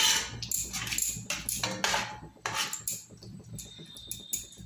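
Flat metal spatula scraping and clinking against a kadai while a thin curry is stirred. The strokes come thick and fast for about three seconds, then ease to a few lighter touches.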